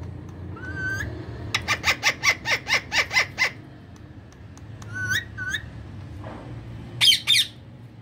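Indian ringneck parakeets calling. There is a rising call about a second in, then a fast run of about ten short, sharp squawks. Two more rising calls follow, and a loud squawk comes near the end.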